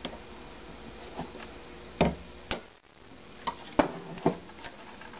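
Claw hammer tapping a wire brad held in pliers, used as a punch to drive the shaft out of a small brass flywheel on an N scale model motor. About eight short, sharp taps come at an uneven pace, the loudest about two seconds in.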